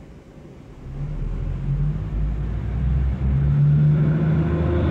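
Subway work train moving slowly along the station track: a low rumble and engine drone that grows louder from about a second in, with higher steady tones joining near the end.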